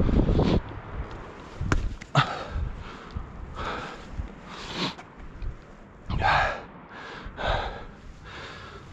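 A man breathing hard from climbing, with a run of loud, separate breaths roughly every second or so. There is wind rumble on the microphone at the very start and a couple of sharp knocks about two seconds in.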